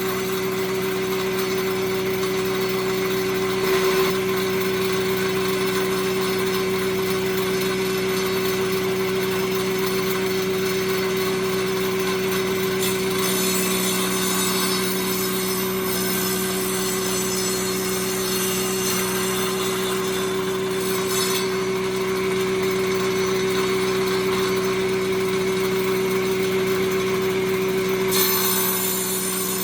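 Circular saw mounted on a jointer planer, running steadily with a constant hum while milling a wood edge; the higher hiss of the cut brightens and fades at times.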